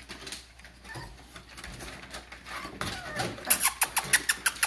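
Young puppies making small squeaks and whimpers. Near the end comes a quick run of sharp clicks.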